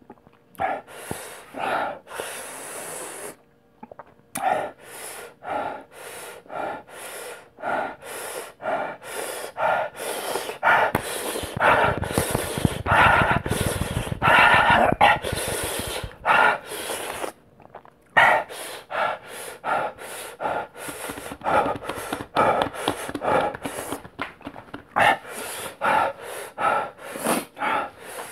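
A man breathing hard in quick, sharp hissing breaths through clenched teeth, about two a second, against the burn of the extremely hot One Chip Challenge chip. A louder, rougher stretch of heavy breathing comes in the middle.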